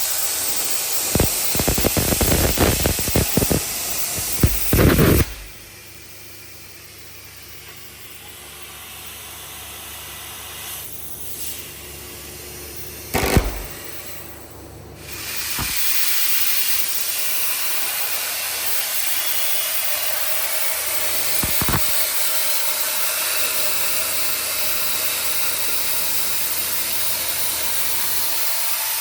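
Steady loud hiss of a CNC plasma cutting torch, with heavy clattering knocks for the first few seconds. The hiss cuts off about five seconds in and starts again after about fifteen seconds.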